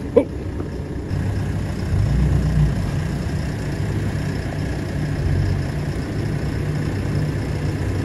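Ford F-150 Raptor's twin-turbo V6 running at low revs as the truck creeps forward, the engine note swelling slightly about two seconds in. A short sharp high blip sounds right at the start.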